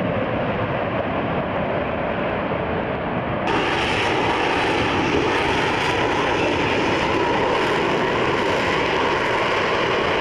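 F-35B Lightning II's F135 jet engine running loud and steady as the jet flies its display. About a third of the way in, the sound jumps abruptly to a brighter, slightly louder noise.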